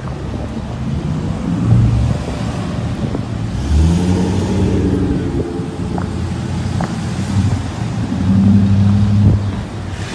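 Cars and pickup trucks driving slowly past one after another, their engines running; one revs up about four seconds in, and a louder engine passes close shortly before the end.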